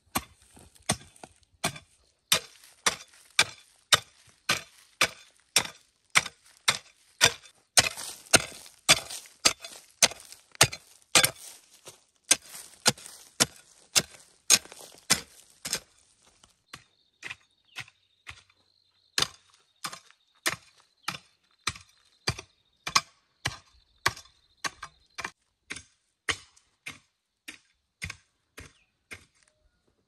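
A hand tool striking over and over in a steady work rhythm, about two sharp blows a second, thinning out a little after the midpoint.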